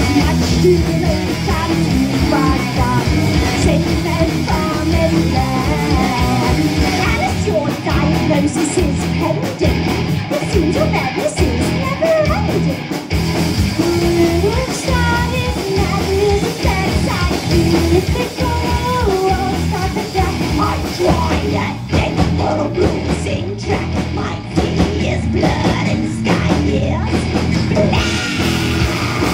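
Live heavy metal band playing at full volume: electric guitars, bass guitar and a Mapex drum kit, with a female vocalist singing over them.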